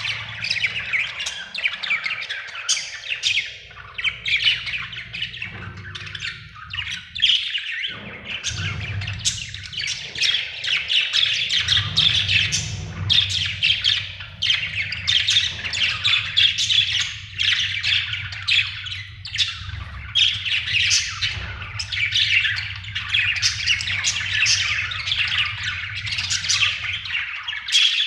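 Budgerigar chattering without a break: rapid chirps and twitters mixed with harsher squawks, the happy chirping of a content budgie, over a faint low hum.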